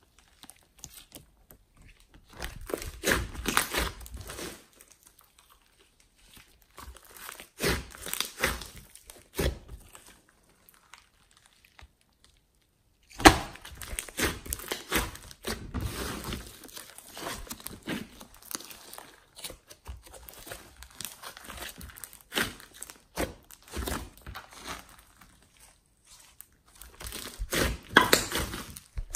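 Hands kneading and squeezing a large mass of slime mixed with clay and foam beads, making irregular wet crackling and popping clicks in bursts, with pauses between. One sharp pop stands out about thirteen seconds in.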